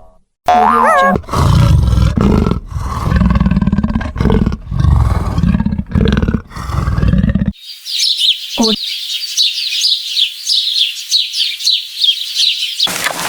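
A cartoon 'boing' sound effect, then a big cat roaring in a series of deep, loud roars for about six seconds. The roaring stops suddenly and gives way to high, rapid chirping for the rest of the time.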